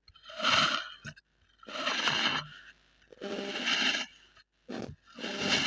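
Kinetic sand being crushed: a grainy, crumbling crunch that comes in about five separate bursts, roughly one every second and a half.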